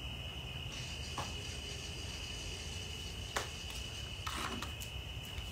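Crickets trilling steadily on one high note, with a few light clicks about one, three and a half and four and a half seconds in.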